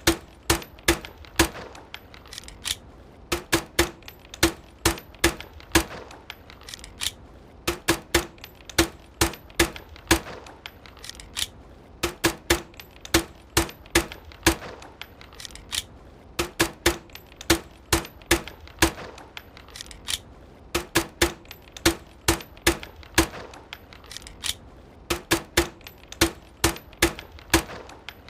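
Pistol fitted with a homemade silencer, fired in quick strings of several sharp, suppressed shots, each string about two seconds long and repeating every few seconds.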